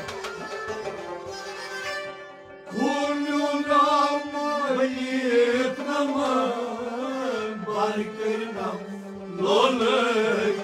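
Kashmiri Sufi folk song: stringed instruments play alone at first, then a male voice enters singing the melody about three seconds in, rising in strength near the end.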